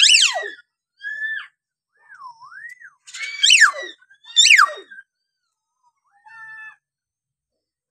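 Hill myna calling: a string of clear whistles, one wavering up and down, and loud, sharp down-sweeping calls, the loudest two about midway, with short pauses between calls.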